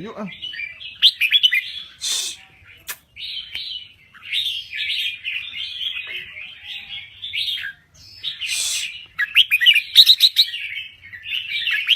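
Red-whiskered bulbul singing full song: a run of quick, chattering, warbling phrases with short pauses between them.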